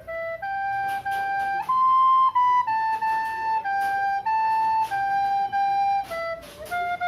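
Recorder playing a slow tune one note at a time, about a dozen steady notes of roughly half a second each, with a little breath noise as each note starts. The highest note comes about two seconds in.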